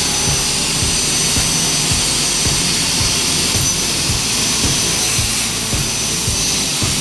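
CNC plasma cutting torch cutting through steel plate: a steady, high hiss from the plasma arc.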